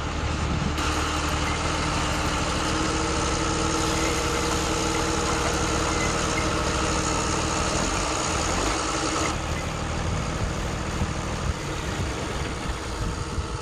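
Truck engine idling steadily, a low hum of several steady tones, most likely an added engine sound effect for the toy trucks; its character changes abruptly about a second in and again around nine seconds.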